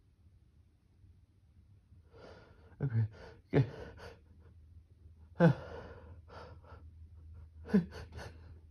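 A person sneezing in a fit, about four sharp sneezes from about two seconds in, each a sudden blast whose voice drops steeply in pitch, with gasping breaths between them.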